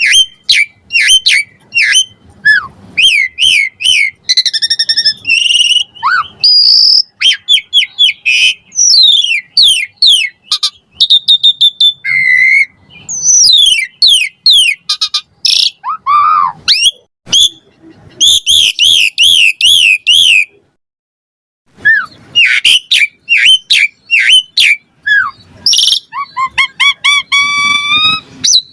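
Asian pied starling singing a fast, continuous string of varied whistles, chirps and rising and falling glides, including mimicked fills of other birds' calls. The song breaks off for about a second roughly three-quarters of the way through, then carries on.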